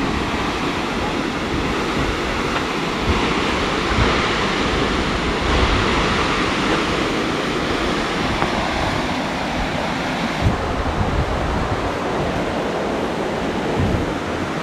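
Steady rush of water from a waterfall and river swollen by heavy rain, with wind buffeting the microphone. The higher part of the rush drops away about ten seconds in.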